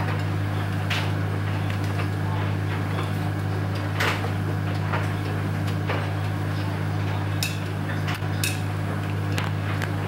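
Front-loading washing machine running mid-wash, a steady low hum as the drum turns, with scattered sharp clicks and knocks at irregular intervals.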